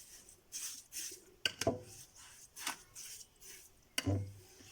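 A spoon clinking and scraping against a bowl while brown sugar is spooned onto lemon peels and juice: a few separate clinks, with a duller knock about four seconds in.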